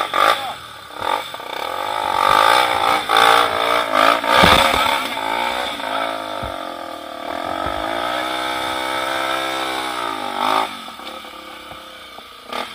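Trail motorcycle engine revving hard under load, its pitch rising and falling, with clattering knocks in the first few seconds. A steadier climb in revs is held until about ten seconds in, then the engine drops off.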